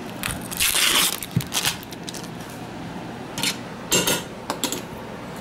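Dishes and utensils clattering: a longer scrape about half a second in, then a few separate clinks and knocks.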